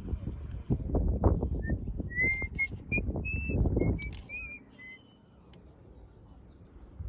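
Wind and handling noise rumble on the microphone for the first few seconds. Over it comes a run of short, clear whistled notes, each at a slightly different pitch, lasting about three seconds.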